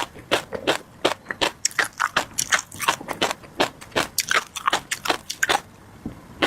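Close-miked crunching and popping of tobiko (flying-fish roe) being chewed: rapid, irregular crisp pops, several a second, easing off briefly near the end.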